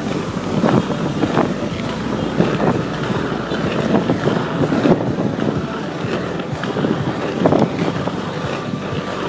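Wind buffeting the microphone over the steady rumble of inline skate wheels rolling on asphalt.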